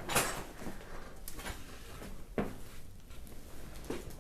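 Knocks and rustling on a chiropractic treatment table during a side-lying adjustment. A sharp knock about a quarter-second in is the loudest sound, followed by a few softer clicks and bumps.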